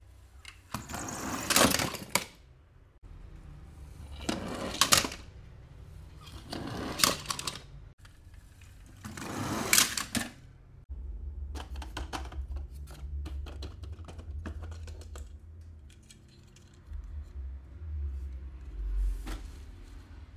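Toy cars and their plastic packaging being handled: four swishing scrapes about two to three seconds apart, then a long run of small quick clicks and taps.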